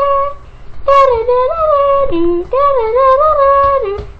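A high voice singing a melody of long held notes that step up and down in pitch, with a short break about half a second in.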